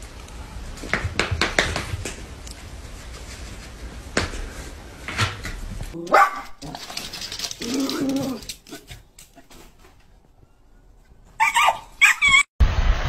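Dogs barking in short bursts across a few quick scenes: a lower call about eight seconds in and a couple of high, quick barks near the end, with scattered taps and clicks earlier.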